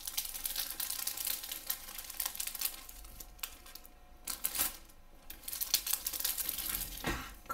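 Flimsy clear plastic cover film on a diamond painting canvas crinkling and rustling as a hand presses it down and slides a metal ruler across it, on and off with small crackles.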